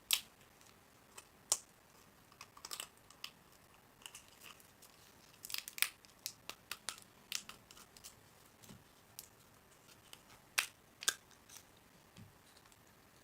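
Food wrapping being handled and torn: irregular crinkles, rustles and sharp ticks, scattered over the whole stretch with a few louder snaps.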